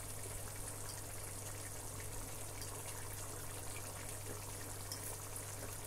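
Pot of egusi soup simmering on a gas hob: a faint, steady hiss, with a low hum underneath and a few tiny ticks.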